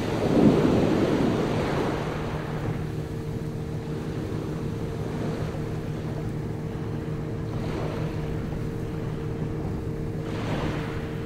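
Boat engine running steadily, with sea and wind noise around it. A louder rushing whoosh comes just after the start and fades over a second or two, and two softer swells of rushing come later.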